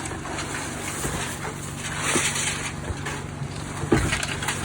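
Roofing work under way: scraping with a couple of sharp knocks, about two and four seconds in, over a steady engine hum.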